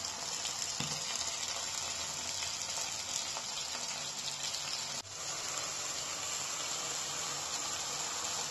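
Masala-coated chicken pieces sizzling steadily as they fry in hot oil in a pan, with a brief dip in the hiss about five seconds in.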